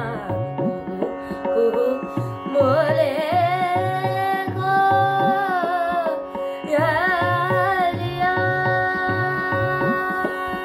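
A boy singing a classical-style Indian song on open vowels, with ornamented turns between long held notes. Under him runs an accompaniment with a steady drum beat and a sustained drone.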